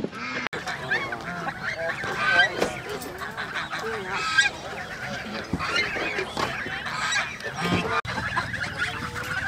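Domestic poultry calling, mostly honking geese, with many calls overlapping.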